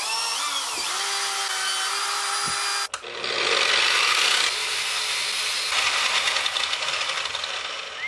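Power tools cleaning the surface of a cast bronze ingot. First an electric drill spins an abrasive wheel against the ingot with a steady motor whine. After a break about three seconds in, a drum sander grinds the ingot, loudest just after it starts.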